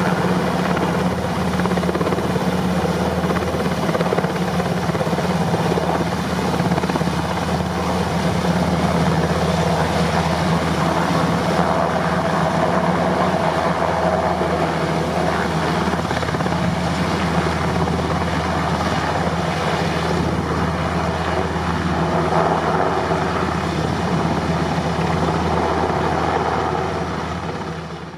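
NH90 military helicopters with twin turboshaft engines and main rotors, running steadily in flight. The sound fades out near the end.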